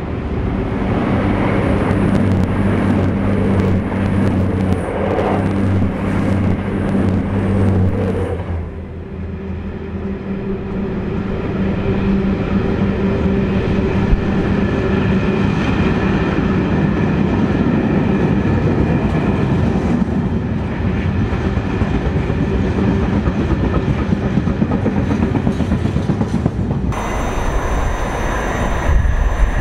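Loaded freight wagons of a Class 66-hauled train rolling past at speed, their wheels clattering rhythmically on the rails. The sound changes about a third of the way in and again shortly before the end.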